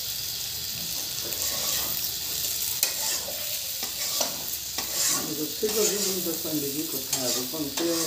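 River prawns sizzling in hot mustard oil in a metal kadai, stirred with a spatula that scrapes against the pan in repeated strokes.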